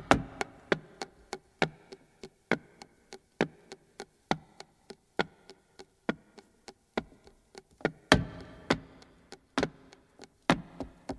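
Flamenco footwork: the heels and soles of a dancer's shoes striking a wooden stage floor in sharp, separate stamps at an uneven, unhurried rhythm, with a few quick flurries and a short ring after the stronger strikes.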